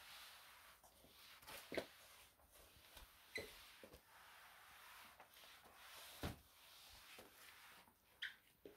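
Faint swishing of a spray mop's cloth pad sliding over a laminate floor, with a few soft knocks and two brief high squeaks as the mop head is pushed and turned.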